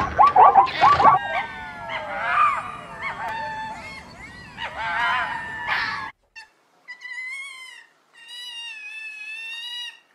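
Plains zebra calling: a quick run of high yelping barks, then several gliding squeals. After a sudden break come two long wavering whines from a red fox.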